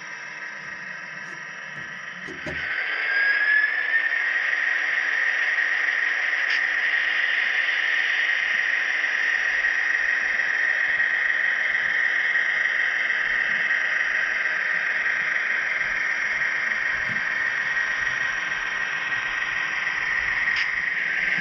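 Model train running on the track: a steady high whine from the model's motor and gears with the rattle of small wheels on rail, which jumps in loudness and rises briefly in pitch about two and a half seconds in, then holds steady. Two faint clicks come through, a few seconds in and again near the end.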